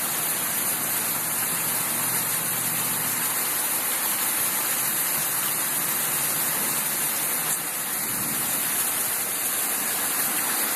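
Steady hiss of heavy rain and rushing floodwater, with a faint low hum that fades out about three seconds in.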